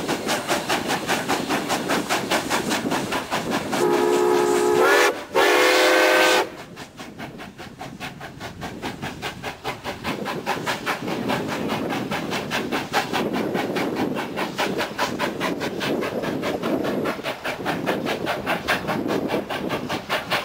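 Nickel Plate Road 765, a 2-8-4 Berkshire steam locomotive, passing at speed with its exhaust beating in a fast, steady rhythm. About four seconds in it sounds its steam whistle in two long blasts, the loudest thing here, then the exhaust beat carries on as it runs away.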